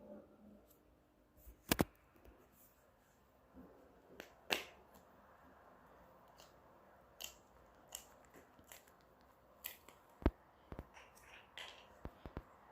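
Scattered clicks and taps of small objects being handled by hand, at uneven intervals, with the sharpest pair close together about two seconds in.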